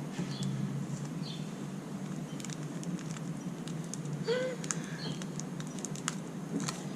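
Homemade glue slime being kneaded and stretched by hand, giving an irregular patter of small sticky clicks and pops.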